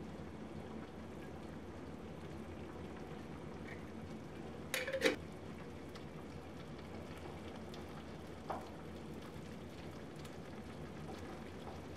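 Beef-and-broth filling simmering in a cast-iron skillet, a steady soft bubbling hiss, while arrowroot is stirred in. About five seconds in, a short clatter as a glass jar is set down on the counter, then a faint tap near the end.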